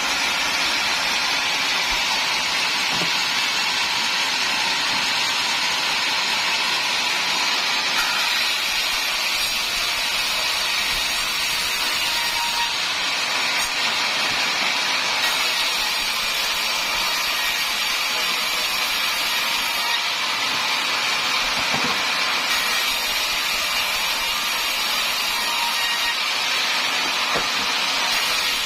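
Sawmill saw running and cutting through timber, a steady, unbroken noise.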